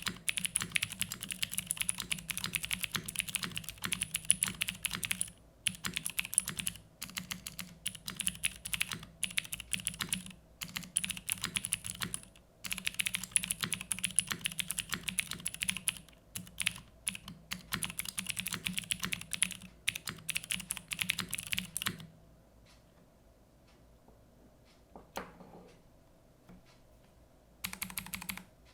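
Typing on an SM x TGR Shi VA mechanical keyboard with clicky Cherry MX Blue switches on a carbon fiber plate: rapid runs of sharp, loud key clicks with brief pauses between bursts. About three-quarters of the way in the typing stops for several seconds, with one faint soft knock in the gap, then starts again just before the end.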